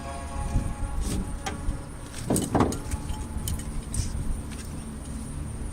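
Metal tie-down strap hooks and buckles clinking and knocking as they are handled, with a louder scrape a little past halfway, over a steady low rumble.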